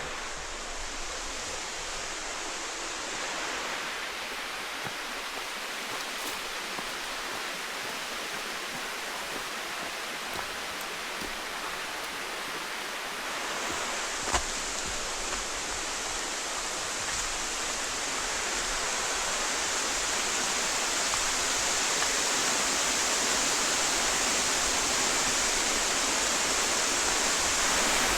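Waterfall rushing: a steady hiss of falling water that grows louder through the second half. A single brief knock about halfway through.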